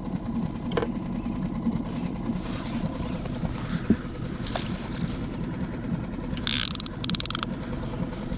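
Steady low rumble of wind on the microphone and water around a small skiff on open sea, with a few light clicks and a short rapid rattle about six and a half seconds in.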